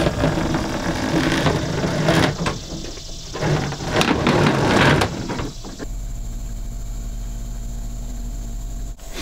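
Electrical cable being pulled by hand along wooden porch rafters, rustling and scraping in uneven bursts. About six seconds in, this gives way to a steady low hum.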